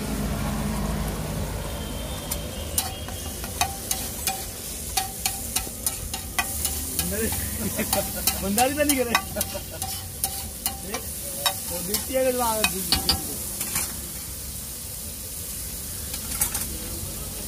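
Flat steel spatula chopping and scraping a tomato-chilli masala on a large flat tawa griddle: quick clacks of metal on metal over the sizzle of oil. The clacking stops about three-quarters of the way through, leaving the sizzle. Two brief rising-and-falling tones sound near the middle.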